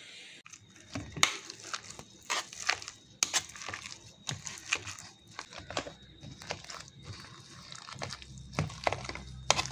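Metal spoon and masher scraping and knocking against a steel pot while mashing cooked rice for kanji, in irregular clicks and scrapes.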